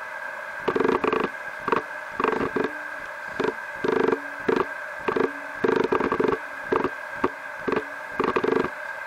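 A man talking in short bursts over a steady background hiss.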